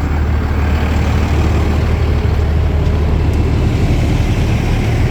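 Fire truck's engine running with a steady low drone and no change in pitch or level.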